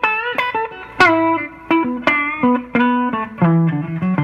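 Collings City Limits Les Paul-style electric guitar through a Fender amp, played clean with no pedals on: a single-note lead line with string bends and vibrato, about three notes a second, stepping down to lower held notes near the end.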